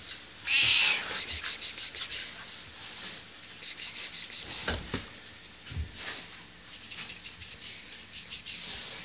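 Small birds chattering: trains of rapid, high chirps, about eight to ten a second, recurring in bursts, with a couple of soft low knocks about halfway through.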